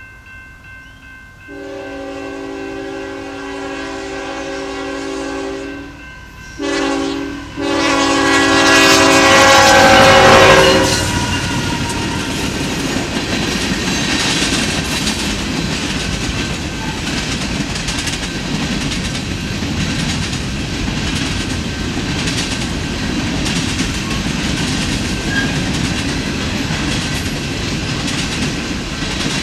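Union Pacific freight train led by a GE ET44AH locomotive blowing its horn for a grade crossing: a long blast, a short one, then a final long blast that grows loudest as the locomotive reaches the crossing. The train then rolls by with a steady rumble and a clatter of freight-car wheels on the rails.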